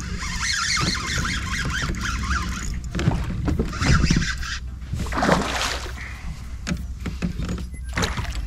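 Loud splashing as a snakehead strikes a lure at the surface about three seconds in, then more splashes as the fish is fought close to the kayak. The strike sounds like a much bigger fish.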